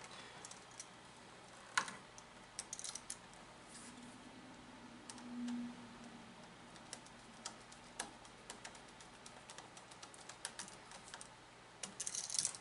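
Faint scattered clicks and small metallic taps from a duplex outlet and its wires being handled while a stripped wire is hooked onto a terminal screw. A quick run of rattling clicks comes near the end.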